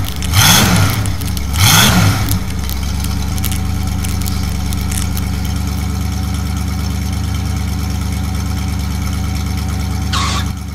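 Monster truck engine sound effect revving up and back down twice, then running steadily at an idle.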